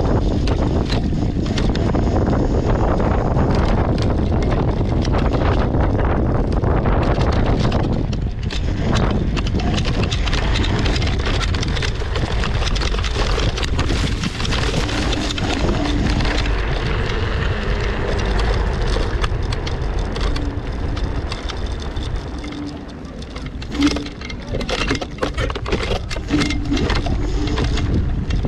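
Nerpa all-terrain vehicle driving off-road over rough ground: its engine runs steadily under scattered knocks and rattles from the bumps, with wind on the microphone.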